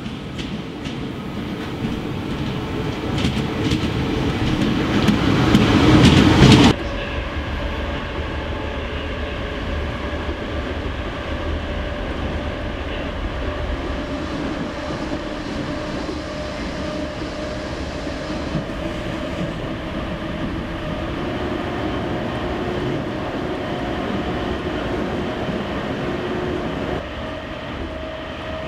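Electric commuter train running, heard from inside the carriage: a steady rumble with a faint hum. The first several seconds build into a louder, noisier rush with clicks, which cuts off abruptly.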